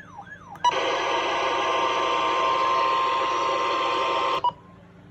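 A weather radio receiver's wailing alarm siren ends just at the start. Then, about half a second in, a loud burst of radio static with a steady tone under it starts abruptly and cuts off sharply nearly four seconds later, as the broadcast signal drops out.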